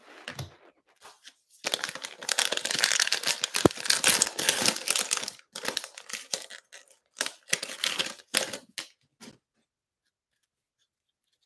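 Cellophane wrapper of a cello pack of Illusions basketball cards torn open by hand: a dense crackling tear for a few seconds, then several shorter crinkles.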